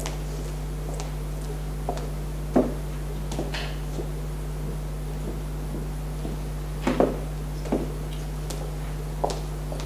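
Steady low electrical hum, with scattered small knocks and rustles of people moving about in a quiet lecture hall.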